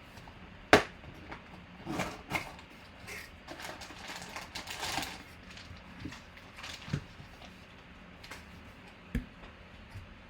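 Trading cards and their packaging being handled on a table: scattered clicks and taps, a stretch of rustling in the middle, a sharp click about a second in and a duller knock near the end.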